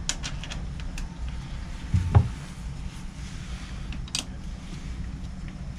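Hands working on a marine gearbox: a few light clicks, one dull knock about two seconds in and a short sharp crackle around four seconds, over a low steady rumble.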